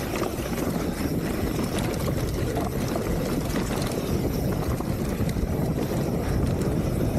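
Wind buffeting the action camera's microphone, with a steady rumble of mountain-bike tyres rolling over a dirt trail.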